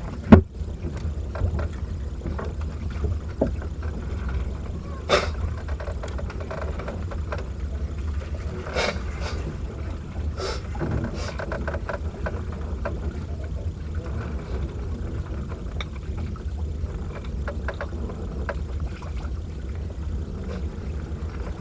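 Noise aboard a small fishing boat at sea: a steady low rumble, with scattered knocks and clicks. The loudest knock comes just after the start, and a few more fall around the middle.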